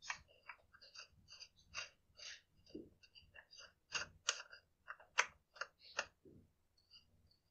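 Faint, irregular light clicks and ticks, two or three a second, of small metal saw parts, the bearing hub and its threaded retainer, being handled and fitted by hand.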